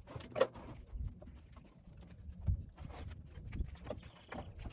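Scattered knocks, bumps and scrapes of a wooden top bar beehive being handled and lifted out of a truck bed.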